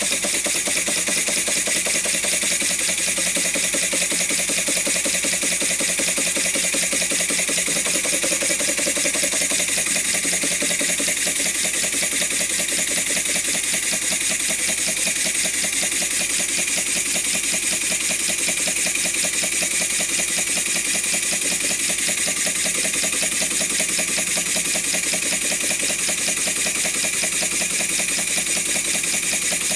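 Small brass overhead-crank model steam engine running steadily on compressed air. It makes a rapid, even chuff of exhaust puffs over a constant hiss.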